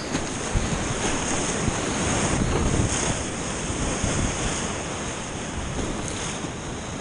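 Whitewater rapid rushing around a kayak as it runs down a steep chute, a dense steady rush of water that swells loudest about two to three seconds in, then eases slightly.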